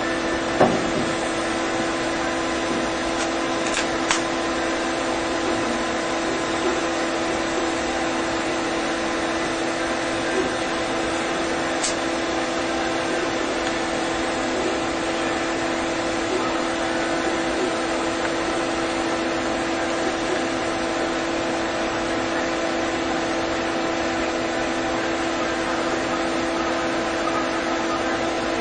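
Steady machine hum: several held tones over an even hiss at constant loudness, with a few faint clicks, one about half a second in and others near four and twelve seconds.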